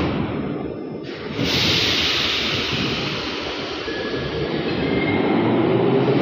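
Old Wagonmasz-built metro train (81-717 family) pulling away from the platform: a sharp hiss about a second and a half in, then its traction motors whine in tones that rise in pitch as it picks up speed, over the rumble of the running gear.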